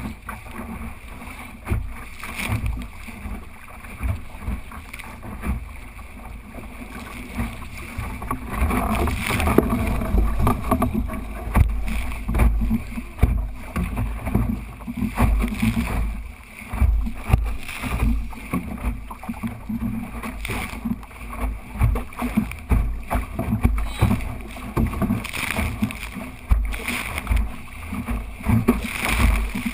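A small sailing dinghy under way in a breeze: wind buffeting the boat-mounted microphone in gusts over the hiss of water along the hull, with occasional knocks.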